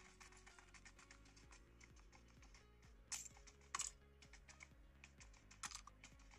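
Fingertips tapping rapidly and lightly on an iPhone X's glass touchscreen, a string of small clicks with a few louder taps in the second half. Faint music plays underneath.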